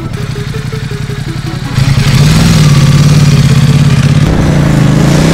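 Ducati XDiavel's V-twin engine running at low revs as the motorcycle rides up and passes close by. It gets much louder about two seconds in and stays loud, its pitch dipping and then rising a little near the end.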